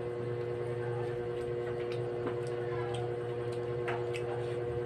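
Steady hum with two held tones, with faint, scattered clicks and ticks from eating at a table.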